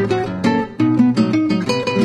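Background music: acoustic guitar playing a quick run of plucked notes over a steady bass line.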